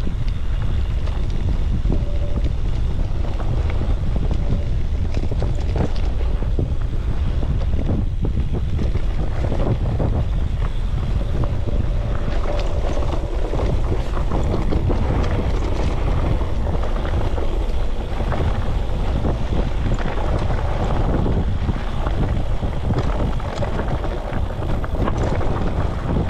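Wind rumbling on the microphone of a mountain bike's handlebar camera during the ride, with frequent rattles and knocks from the bike on a rough track.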